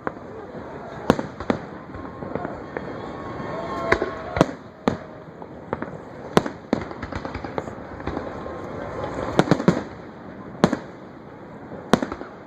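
Fireworks going off: about a dozen sharp, irregularly spaced bangs, some in quick clusters, over continuous crackling.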